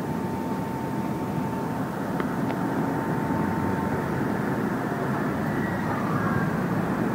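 Mobile crane's diesel engine running steadily under load while hoisting a modular apartment unit, with a thin steady whine that fades out about four seconds in and two faint clicks around two seconds in.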